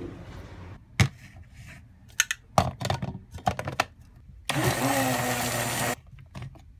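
A few sharp clicks and knocks of handling, then a personal blender's motor runs for about a second and a half, blending a protein smoothie, and stops abruptly.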